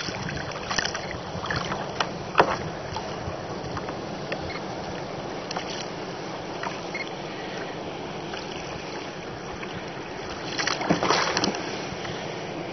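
Sea water lapping and splashing against a sit-on-top fishing kayak's hull in a choppy swell, over a steady hiss of wind and sea. There are a few sharp slaps, and a louder run of splashing near the end.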